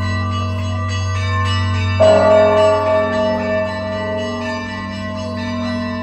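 Georgian Orthodox church bells ringing: several bells sound together over the deep, steady hum of a large bell. One loud strike about two seconds in rings on and slowly fades.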